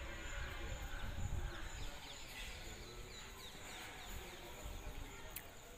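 Open-air ambience with a few birds chirping in short, falling calls through the middle, over an uneven low rumble. A single sharp click comes near the end.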